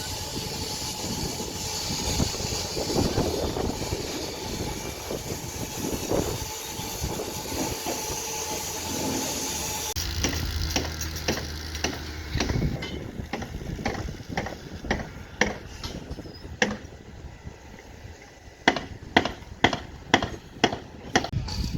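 Heavy machinery running with a steady hiss for about ten seconds. Then it goes over to a low engine hum and a growing series of sharp knocks, about two a second near the end.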